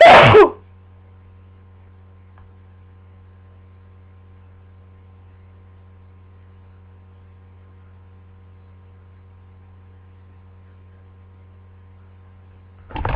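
A person with a bad head cold sneezing once, loudly and briefly, right at the start, followed by a steady electrical hum for about twelve seconds. Just before the end a short sharp breath begins the next sneeze.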